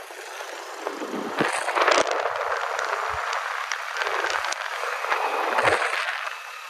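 Road and wind noise from riding a motorbike through traffic: a steady rushing noise with scattered crackles.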